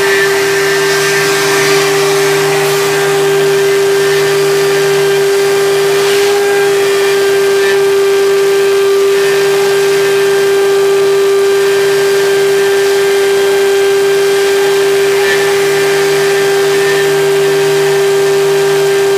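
CNC machine running: a loud, steady, high spindle whine, with a lower hum that cuts in and out every few seconds.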